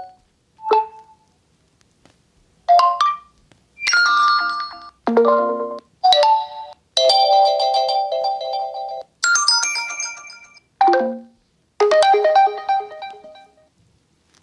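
Oppo Find X3 Pro ringtone and notification sounds played one after another: about nine short chiming melodies, each lasting half a second to two seconds, with brief silences between them.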